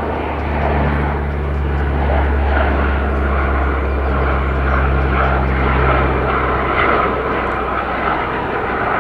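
CP-140 Aurora (Canadian P-3 Orion) flying past with its four Allison T56 turboprop engines running. It makes a steady low hum over propeller and engine noise, and the low hum fades about seven seconds in.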